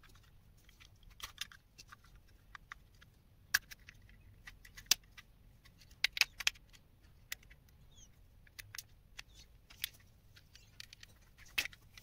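Irregular small clicks and light scraping as a thin metal blade pries along the seam of a plastic hearing-aid case, with a few sharper plastic snaps around the middle.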